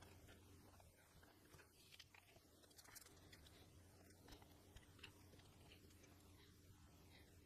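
Near silence: faint room tone with a low hum and a few faint, scattered small clicks.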